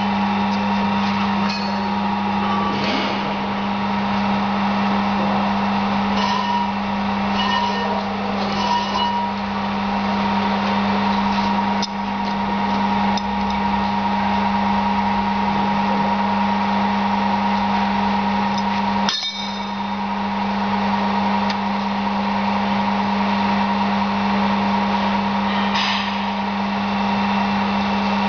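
C9365 brake disc/drum lathe running with a steady electric hum, its arbor turning a mounted brake drum, with occasional metallic clinks and ticks as the tool holder is handled.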